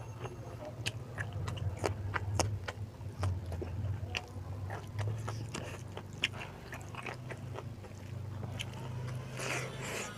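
A person chewing and biting a mouthful of beef curry and rice, with irregular wet mouth clicks over a steady low hum.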